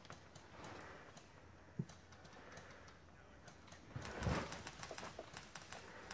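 Mostly quiet, with a few faint light clicks and a brief soft scuffle about four seconds in.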